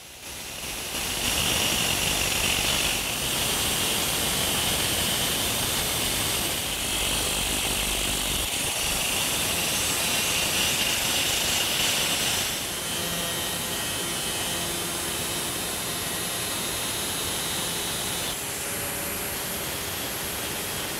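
Angle grinder with a 4-inch cutoff wheel cutting through a Warp 11 electric motor's spinning shaft, a steady high grinding whine. About halfway through the sound eases a little quieter as the wheel is run over the cut end and the edge of the splines to knock down burrs.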